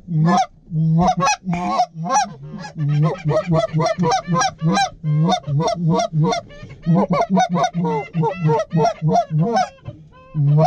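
Canada goose calls blown hard and fast by several callers: rapid, overlapping honks and clucks, several a second, with short breaks, calling to a flock of geese working toward the decoys.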